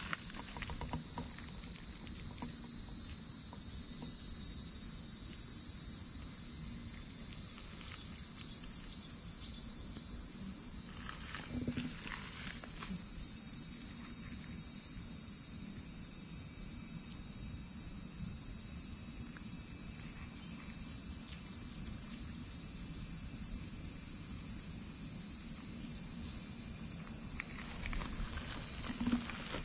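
A steady, high-pitched drone of insects in the summer vegetation, unbroken throughout, with a couple of faint brief sounds partway through and near the end.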